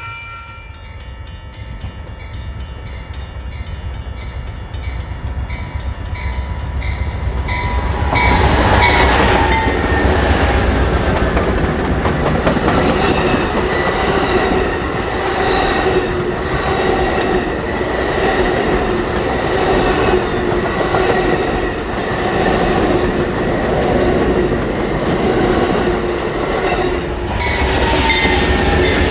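Amtrak passenger train of double-deck Superliner cars rolling past close by: a steady rumble of wheels on rail with clickety-clack over the joints, becoming loud about eight seconds in. A grade-crossing bell rings evenly throughout, and a train horn chord cuts off at the very start.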